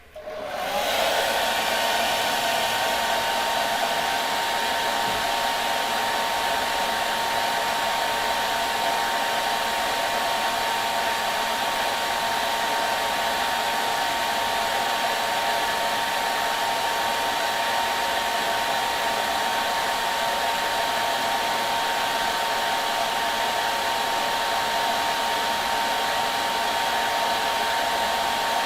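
Hair dryer switching on and spinning up over about the first second, then running steadily: an even rushing of air with a steady high whine from the motor.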